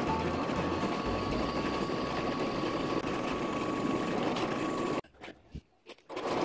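Drill press running steadily, its bit cutting into a small metal plate clamped in a machine vise. The sound cuts out suddenly about five seconds in and comes back just before the end.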